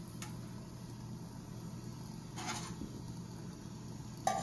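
Faint steady indoor background hum, with a short click just after the start, a brief soft rustle about two and a half seconds in, and a sharp clink right at the end.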